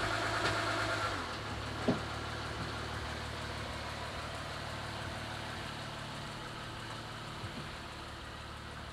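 Lexus IS350's 3.5-litre V6 idling as the car reverses slowly away, a low steady hum that dips about a second in and grows gradually fainter. A single short click sounds about two seconds in.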